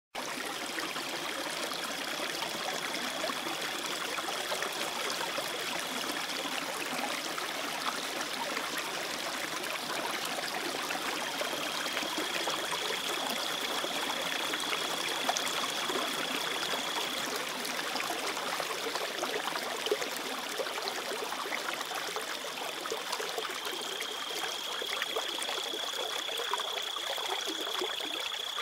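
Shallow river water running steadily over stones, a continuous rushing hiss. A high, steady whine comes in three times, each lasting several seconds.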